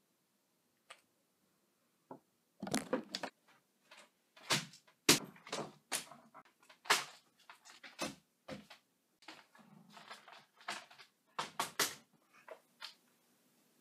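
Paper signs being handled and stuck up: a string of short, irregular rustles and crackles of paper.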